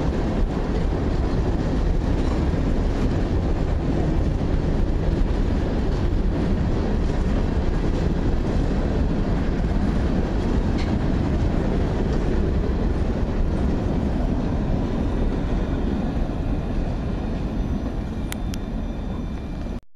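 Freight train cars rolling past, a steady rumble of wheels on rail with faint scattered clicks. It eases slightly near the end, then cuts off abruptly.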